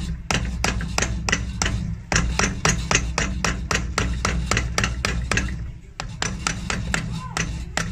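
A steel cobbler's hammer tapping rapidly on old heel nails in a leather shoe's heel seat, about four sharp strikes a second with a brief pause near the end, knocking the nails through so they can be pulled from inside the heel.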